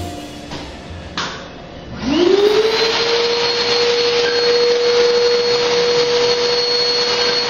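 Wet-dry vacuum with a floor squeegee switching on about two seconds in. Its motor whine sweeps up quickly and settles into a steady high whine with a loud rush of air as it sucks up polishing slurry from a terrazzo floor.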